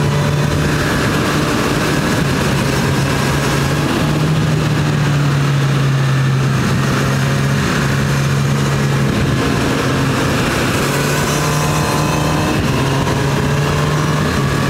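Honda CB1000R's inline-four engine running steadily at cruising revs, heard from the riding bike together with heavy wind rush. The engine note steps up and down a few times as the throttle is eased on and off through the bends.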